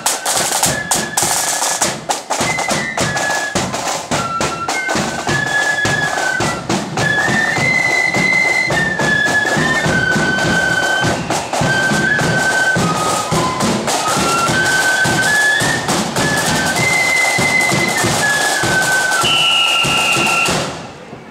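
Marching flute band playing: side drums and a bass drum beat out the march, and the flutes come in with the tune about two seconds in. The band stops together just before the end.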